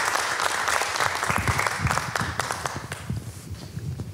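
Audience applauding, the clapping dying away about three seconds in, with a few soft low thumps underneath.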